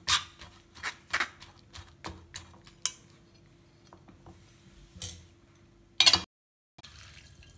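Steel ladle clinking and scraping against a stainless-steel mesh strainer full of boiled drumstick (moringa) pods, pressed and turned to push the soup broth through. A quick run of sharp clinks comes in the first three seconds, with one more about five seconds in and the loudest clatter about a second later.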